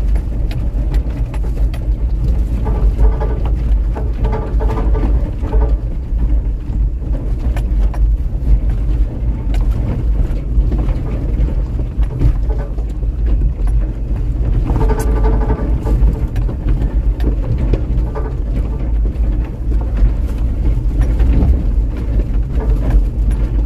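Inside a vehicle's cab driving slowly over a rough, rocky macadam road: a steady low engine and road rumble, with frequent small knocks and rattles as the wheels go over stones.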